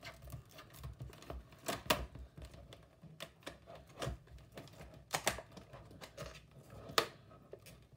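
Hard clear plastic clamshell packaging being handled and cut open with scissors: irregular sharp clicks and snaps of the stiff plastic, a few louder cracks among them.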